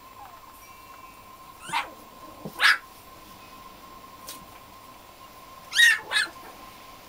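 Five-week-old black-and-tan Griffon puppies giving short high-pitched yelps: two around two seconds in, then two louder ones close together near six seconds.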